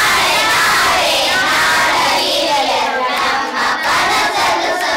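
A class of schoolchildren singing a line of a Kannada song together in unison, many voices at once, repeating the line just sung by the teacher.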